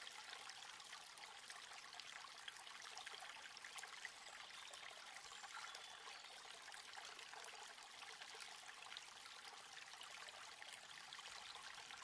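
Faint, steady rushing noise of running water, flecked with fine crackle.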